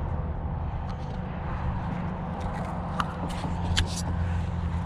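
A steady low motor hum, with a couple of light sharp clicks about three and nearly four seconds in as a tangled baitcasting reel's line is picked free.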